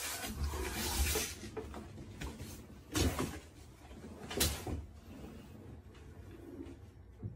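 Handling noise from work on a bench: a rustle at the start, then two sharp knocks about three and four and a half seconds in.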